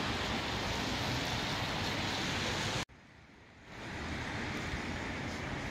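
Steady rush of wind and distant city traffic outdoors. It cuts off abruptly about three seconds in, and a second later a quieter, steady background of the same kind returns.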